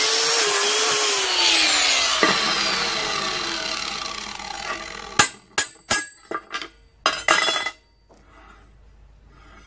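A handheld power tool's electric motor running at speed, then switched off about a second in and spinning down with a falling whine that fades over a few seconds. A handful of sharp clicks and scrapes follow near the end.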